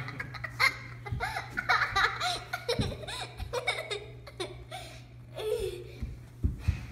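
Young girl laughing and giggling in short repeated bursts.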